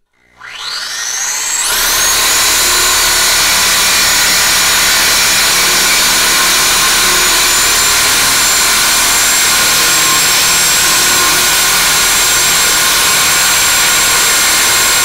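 Cordless DeWalt reciprocating saw spinning up and then running steadily as it cuts through the steel exhaust pipe of the stock exhaust. The motor's whine and the cutting noise are loud and even throughout.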